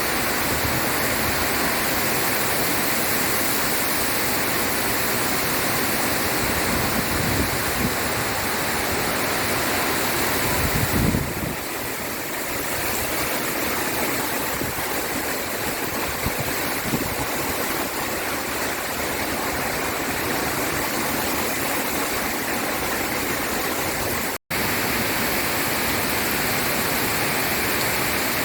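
Heavy rain pouring steadily, a dense even hiss. It breaks off for an instant about three-quarters of the way through, then carries on unchanged.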